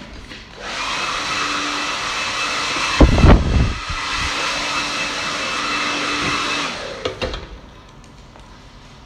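Handheld hair dryer blowing a client's hair: switched on under a second in, running steadily with a steady whine for about six seconds, then shut off around seven seconds. A brief, loud low rumble about three seconds in.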